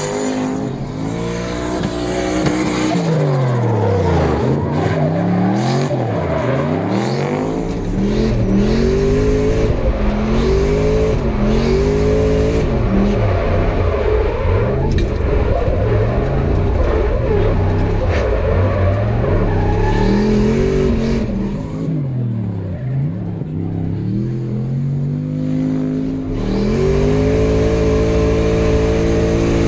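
GM LS V8 in a Nissan drift car, revving hard and rising and falling over and over as the throttle is worked through the drift, with steadier high revs in the middle.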